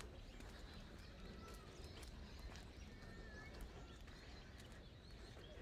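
Near silence: faint footsteps walking on a stone path over a low wind rumble, with a few faint, short bird chirps.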